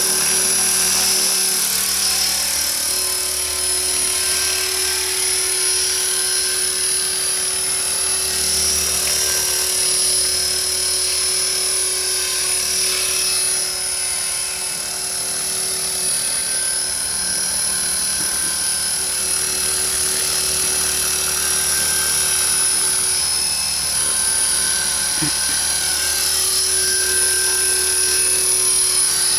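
Radio-controlled model helicopter in flight: a continuous rotor and motor whine with a steady high tone. It dips slightly in loudness about halfway through as the helicopter flies farther off.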